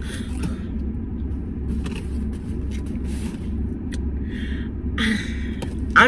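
Low, steady rumble of a car engine idling, heard from inside the car's cabin, with a couple of brief soft noises near the end.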